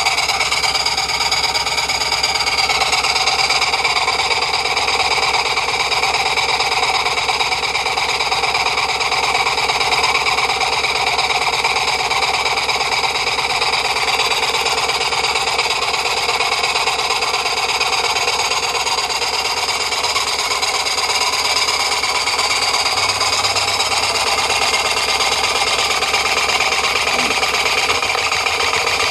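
Märklin 16051 live-steam model engine running fast and steady, its exhaust steam chuffing rapidly and evenly through a brass chuff pot, over a constant hiss.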